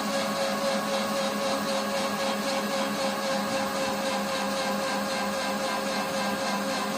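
Washing machine running with a steady motor hum and whine that holds constant throughout.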